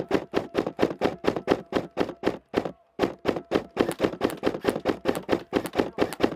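Rapid, even footfalls of a player running on woodland ground, about six thuds a second, breaking off briefly partway through.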